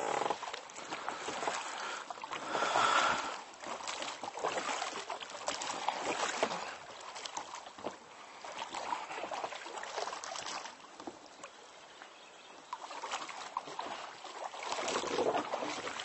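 An inflatable boat being rowed through still water: the oars swish and splash in strokes every few seconds, with no motor running.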